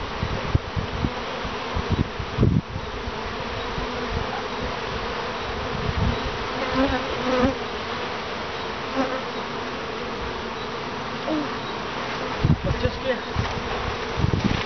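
Honey bees buzzing in a dense cloud at the hive entrances: a steady hum, with single bees' buzz swelling and gliding past close to the microphone. Two low bumps, a few seconds in and again near the end.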